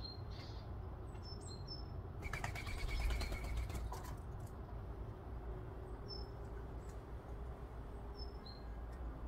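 Small birds giving a few short, high, falling chirps now and then, with a brief flutter of wings about two to four seconds in. A steady low rumble runs underneath.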